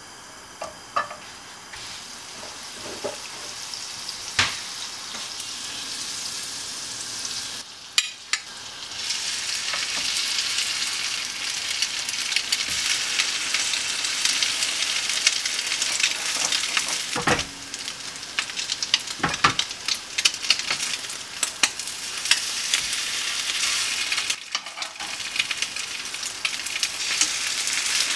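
Egg-soaked bread slices frying in butter in a hot nonstick frying pan, a steady sizzling and crackling that grows louder from about ten seconds in. A few sharp clicks stand out.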